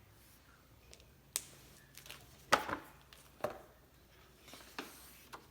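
Handling noises: about half a dozen short knocks and rustles spread over a few seconds, the loudest about two and a half seconds in.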